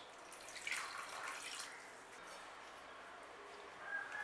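Water poured from a glass into a steel bowl onto a lump of tamarind, splashing for about a second. Near the end a faint steady high tone begins.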